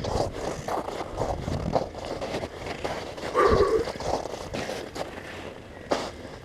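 Footsteps crunching on snow-covered lake ice, an irregular run of steps, with one short louder noise about three and a half seconds in.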